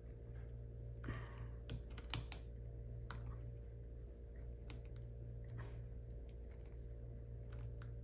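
Flathead screwdriver driving the screws of a Legrand L21-30C connector's housing, giving irregular small clicks and scrapes as the screws are tightened, over a steady low hum.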